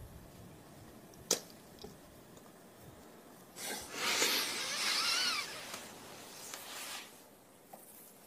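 Close-up kissing: a sharp wet smack a little after one second in, then heavy breathing with a breathy moan that rises and falls, from about three and a half to seven seconds in.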